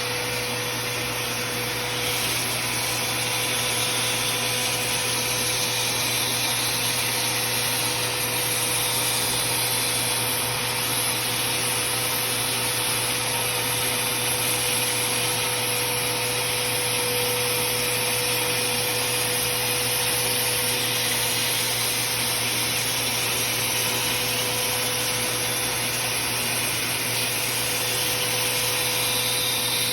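Vacuum cleaner running steadily, sucking up sawdust, with a steady hum and hiss that rises slightly about two seconds in.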